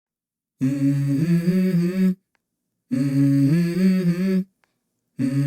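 Background music: a wordless hummed vocal phrase with no beat, sung three times with short pauses between, the same stepping tune each time.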